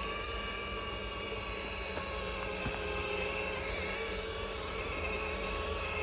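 Electric motor and gear whine of a radio-controlled scale crawler truck, steady with small shifts in pitch. A short click at the very start.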